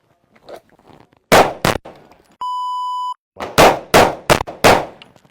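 Two gunshots, then a shot timer's steady electronic beep lasting under a second. A fast string of four shots follows about half a second after the beep.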